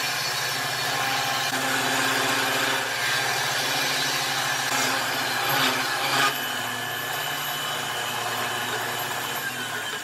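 A 1/2-inch drill bit in the horizontal chuck of a motor-driven bench machine boring through pine blocks: a steady motor hum under the scraping of the bit cutting wood, with a few louder scrapes about halfway through.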